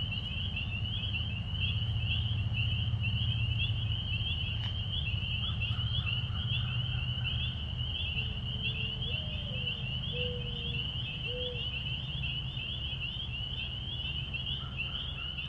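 A steady, high-pitched, rapidly pulsing chorus of calling animals, with a few short lower calls in the middle, over a low rumble.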